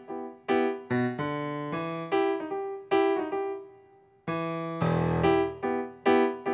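Piano playing an instrumental passage of struck chords, two or three a second, each ringing and fading. About three and a half seconds in, the notes die away almost to silence, then the chords start again firmly.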